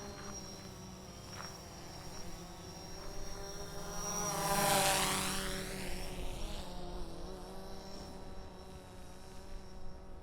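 DJI quadcopter drone's propellers buzzing as it flies past, growing louder to a peak about halfway through and then fading away.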